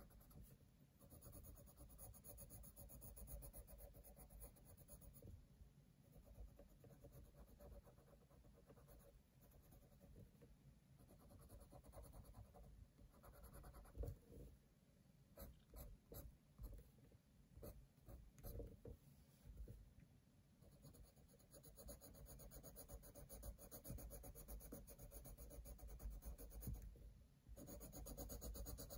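Faint scratching of a coloured pencil shading across sketchbook paper in steady back-and-forth strokes, broken around the middle by a few light knocks and taps.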